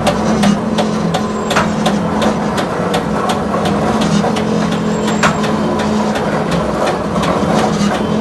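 Glass mosaic machine running: a steady motor hum under a run of sharp clicking strokes, about three a second at first, then sparser and irregular.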